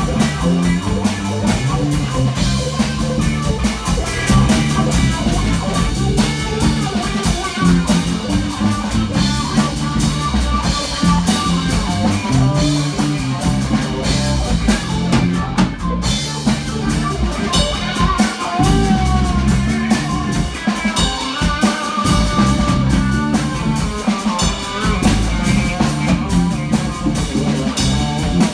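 Live rock band playing: guitar and drum kit over a low, moving bass line.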